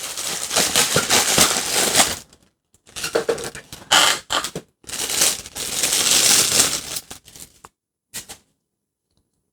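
Plastic packaging crinkling and rustling as an action figure is pulled from its wrapping and tray, in several bursts with short pauses and a last brief rustle near the end.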